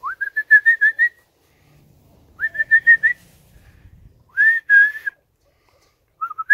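A person whistling to call the dogs: three bursts of short, rapid high notes. The first slides up into a quick run of about seven notes, the next two are shorter, and another burst begins at the very end.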